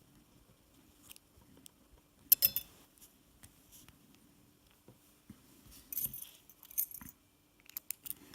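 Metal clicks and clatter from a brass padlock and tools being handled: one sharp metallic click about two seconds in and a short run of small clatters near the end, over a faint steady hum.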